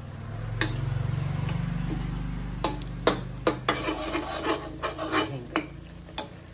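Spatula scraping and knocking against a steel wok in quick strokes, from about two and a half seconds in, while a dish is stir-fried. A low hum swells at the start and fades out.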